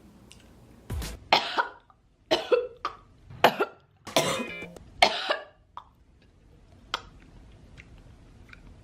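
A woman coughing hard, a run of about six harsh coughs starting about a second in, some with a rasping voiced edge, stopping a little past halfway.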